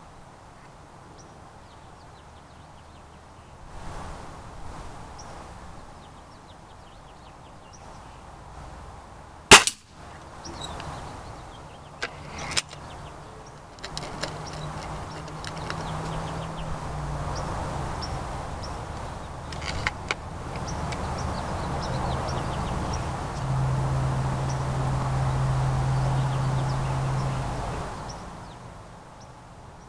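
Break-barrel spring-piston .22 air rifle (Beeman RS2) fired once: a single sharp crack about a third of the way in, followed a few seconds later by a couple of smaller clicks and knocks. A low steady drone builds in the background through the second half.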